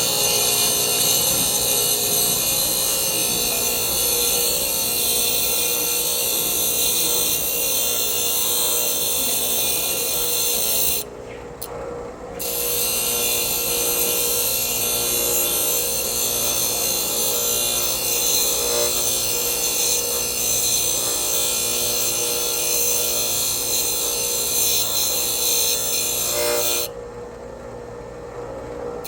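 A bench grinder runs steadily while a steel twist drill bit is held against its wheel, making a continuous grinding hiss. The bit is lifted off the wheel briefly about eleven seconds in and again near the end, leaving only the motor's hum.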